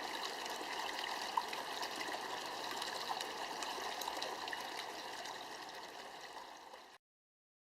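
Water trickling over the rocks of a small tabletop flowing-water penjing fountain: a steady trickle with small drips and splashes. It fades near the end and stops suddenly.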